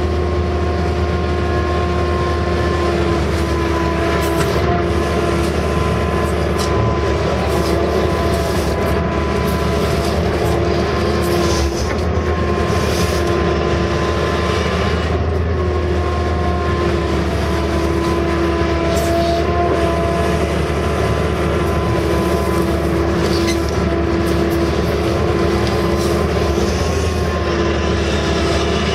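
Case CX160 excavator's diesel engine running steadily under working load, heard from inside the cab, with a whine that shifts as the hydraulics are worked. Occasional knocks and scrapes come from the bucket digging into the soil.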